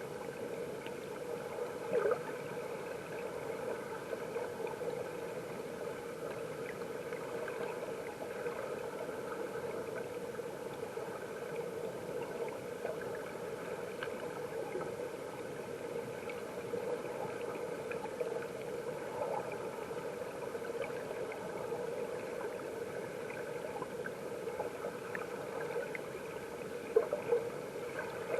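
Mountain stream water heard from underwater: a steady rushing hum with a few short knocks, one about two seconds in and a cluster near the end.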